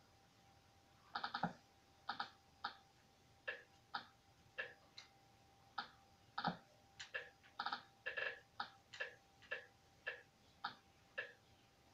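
Short electronic key beeps at irregular intervals, about one or two a second with a few quick runs of several, as keys are pressed one by one on a device, over a faint steady hum.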